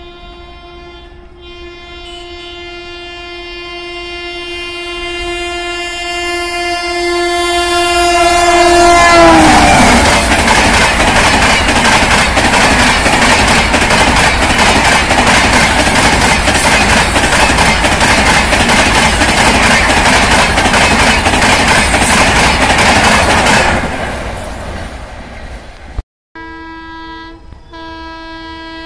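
A Rajdhani Express's electric locomotive sounding one long, steady horn as it approaches, growing louder, with the pitch dropping as it passes about nine seconds in; then the loud rush and wheel clatter of the coaches speeding by at about 130 km/h, fading out after about fifteen seconds. Near the end another train's horn sounds steadily as it approaches.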